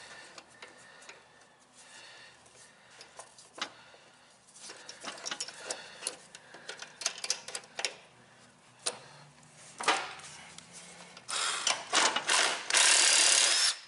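Flywheel puller being worked on a Briggs & Stratton engine's flywheel: scattered sharp metal clicks, then near the end a power impact wrench hammering on the puller screw in two loud bursts to pop the flywheel off the crankshaft.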